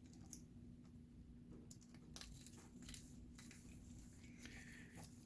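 Faint clicks and rustling of electrical wires being handled and twisted together in a splice, barely above near silence, with a faint steady hum underneath.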